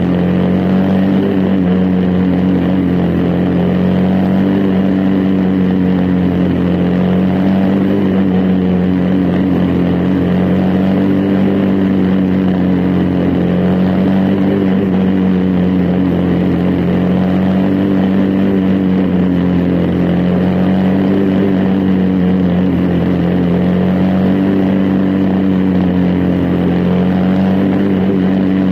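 Briggs & Stratton Animal single-cylinder four-stroke racing engine running hard at high revs under race load, heard from onboard the car, its pitch dipping slightly and rising again every few seconds.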